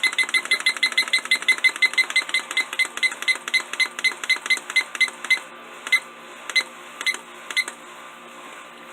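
Dream Sky digital alarm clock beeping as its buttons step through the alarm time setting: a quick run of short high beeps, about five a second, that breaks off about five seconds in, then four single beeps at slower, uneven spacing, then stops.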